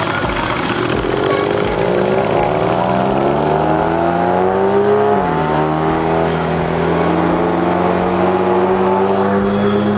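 Car engine accelerating, its pitch rising for about four seconds, then dropping suddenly at an upshift about five seconds in and climbing slowly again in the next gear.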